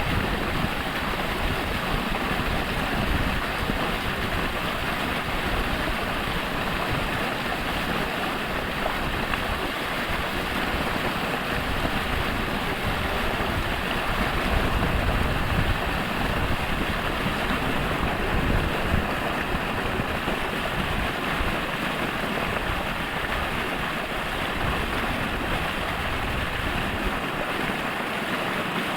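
Falling water splashing and rushing in a steady, even stream of noise.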